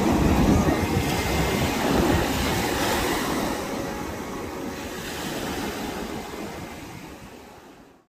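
Ocean surf washing in, a steady rush of breaking waves with wind rumbling on the microphone, fading out gradually over the last few seconds.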